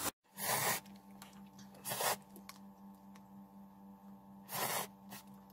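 A person slurping instant ramen noodles from a cup, three short slurps spaced a second and a half to two and a half seconds apart, over a faint steady hum.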